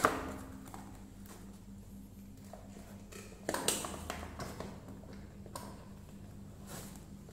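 Cardboard and plastic toy packaging handled by hand: sharp taps, knocks and crinkles as a taped cardboard insert and clear plastic tray are worked loose. The loudest knock comes right at the start, with another cluster about three and a half seconds in.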